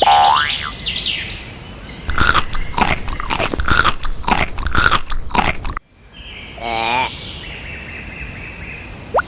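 Cartoon sound effects. A quick rising whistle comes first, then about four seconds of crunching that cuts off suddenly, then a short warbling tone.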